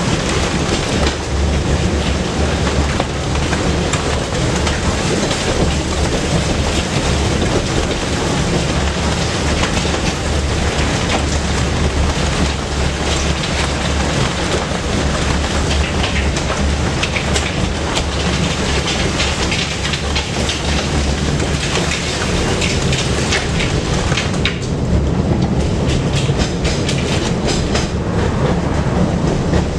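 Tram running along the track, heard from on board: a steady hum from the running gear and motors, with the wheels clicking over rail joints, the clicks most frequent in the last few seconds.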